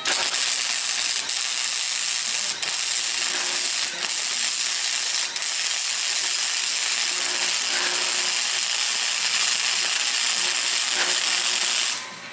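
Electric arc welding on steel: a loud, steady sizzle that starts abruptly as the arc is struck and stops abruptly just before the end, with a few brief dropouts in the first five seconds where the arc momentarily falters.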